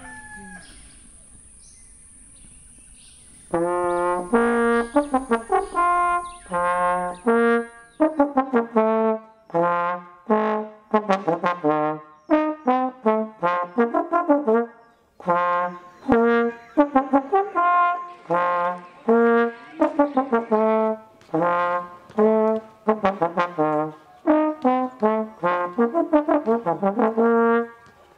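Solo trombone playing a melody in short phrases of held and repeated notes, with brief pauses between phrases; it comes in about three and a half seconds in.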